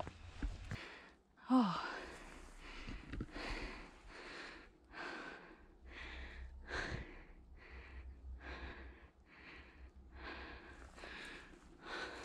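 A hiker's heavy, rhythmic breathing, quick even puffs a little more than one a second, with a voiced sigh that falls in pitch about a second and a half in. The hiker is out of breath from climbing a steep trail.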